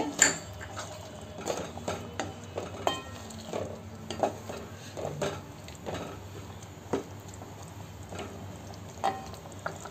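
Wooden spatula stirring cream into a chicken curry in a steel pot, with scattered scrapes and light knocks against the pot over a faint simmer.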